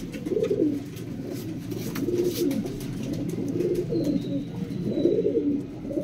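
Domestic pigeons cooing over and over, one low rolling coo phrase after another.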